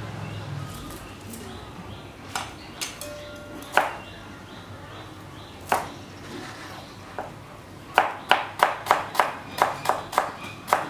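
A kitchen knife chopping fresh coriander on a plastic cutting board: a few scattered knocks at first, then from about eight seconds in a quick, even run of chops, almost four a second.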